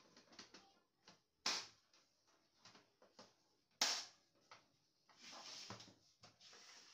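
Hands working on a laser printer's parts: scattered light plastic clicks, two sharper knocks about a second and a half in and near the four-second mark, then a scraping slide of parts near the end.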